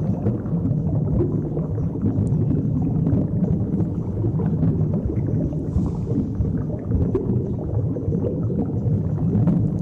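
Steady low underwater rumble, as a diver's camera picks it up, with scattered faint clicks and a brief soft hiss of bubbles about six seconds in.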